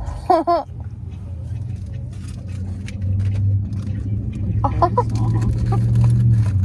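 Car engine and road noise heard inside the cabin as a steady low hum that grows louder about three seconds in, with a brief high voice at the start and another short vocal sound about five seconds in.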